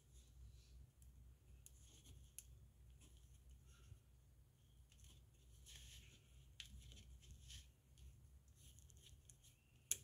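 Faint scratching and small clicks of a safety pin scraping the corroded, green metal contacts inside a white plastic wire-harness connector, with one sharper click near the end. The scraping clears the corrosion that stops the part's signal from getting through.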